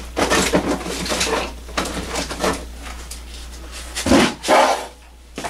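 Off-camera rummaging, with objects being moved and knocked about and two louder knocks about four seconds in, over a steady low hum.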